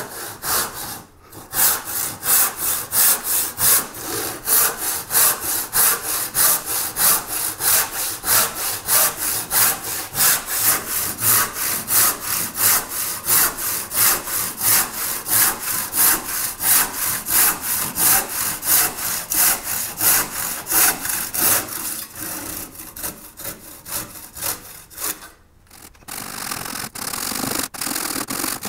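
Handsaw crosscutting through the end of a new wooden vise jaw to trim it flush, in steady back-and-forth strokes about two a second. The strokes get lighter near the end, stop briefly, and give way to a softer, steady rasping.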